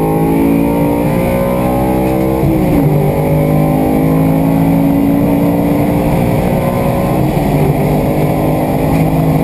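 BMW 318is rally car's S14 four-cylinder engine running hard at steady revs, its pitch dipping briefly twice.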